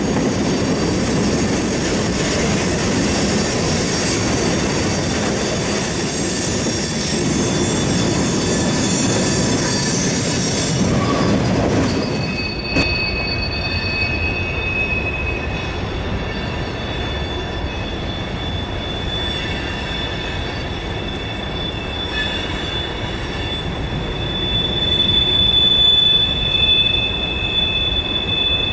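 A train rolling past with its steel wheels rumbling on the rails. After an abrupt change about twelve seconds in, sustained high-pitched wheel squeal grows louder toward the end, the flange squeal of wheels grinding through a curve.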